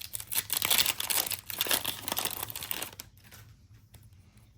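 Trading-card pack wrapper crinkling as it is handled and opened, a busy crackle for about three seconds that then drops to quieter rustling.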